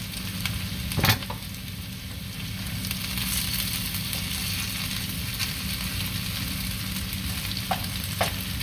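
Shredded-potato patties frying in oil in a skillet, a steady sizzle, with one sharp knock about a second in and two lighter clicks near the end.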